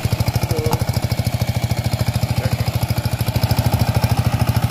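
A two-wheel power tiller's single-cylinder diesel engine runs steadily at about a dozen beats a second. It is pulling a three-disc plough through weed-choked, waterlogged paddy mud, where the thick weeds load it heavily.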